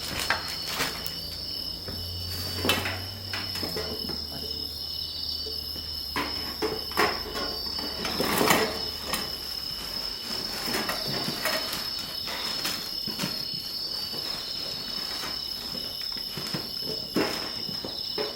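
Insects singing in a steady high-pitched drone, over irregular crackles and pops from a wood campfire, with a louder rustling burst about eight seconds in.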